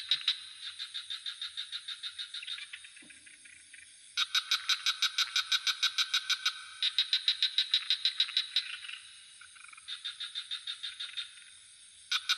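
Frogs calling in a swamp chorus: bouts of rapid, evenly pulsed rattling calls, about ten pulses a second, each bout lasting two to three seconds and following one another with short gaps. A steady high-pitched insect drone runs underneath.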